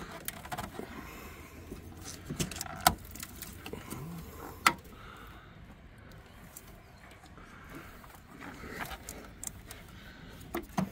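Scattered small clicks and rattles of hands handling a plastic power distribution box and its wiring connectors in a truck's engine bay, with a few sharper clicks, about three and five seconds in and near the end.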